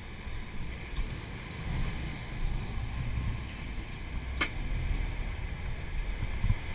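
Low, steady rumble of wind on the microphone and a sportfishing boat running through the sea, with a single sharp click about four and a half seconds in.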